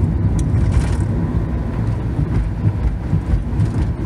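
Steady low engine and road noise inside the cabin of a small van on the move.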